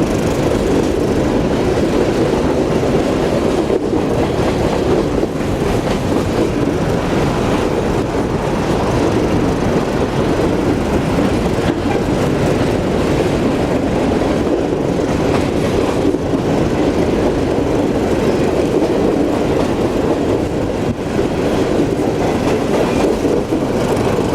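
Empty coal hopper cars of a freight train rolling past, a steady rumble of steel wheels on rail with occasional faint clicks.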